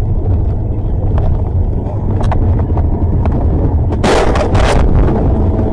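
Steady low road and engine rumble picked up by a car's dashcam, with scattered light clicks. About four seconds in comes a loud crashing burst with several sharp knocks, lasting under a second, as the car is jolted in a collision.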